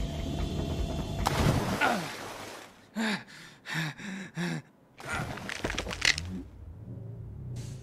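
Animated cartoon soundtrack: steady background music, then a loud rushing burst a little over a second in. Around the middle come four short gasps in quick succession, followed by a few more brief noises.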